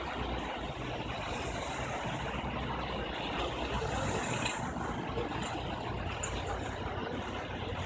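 Bin-washing truck's engine running steadily under an even hiss, with a brief louder high hiss about four seconds in.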